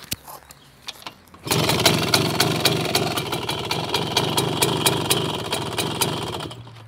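Dezamet 023 two-stroke moped engine with a contactless CDI ignition being started: after a few clicks it fires about a second and a half in and runs with rapid, even firing for about five seconds, then dies away near the end.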